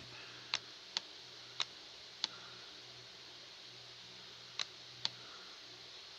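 Computer mouse clicking: six sharp single clicks, four in the first two and a half seconds and two more close together later on.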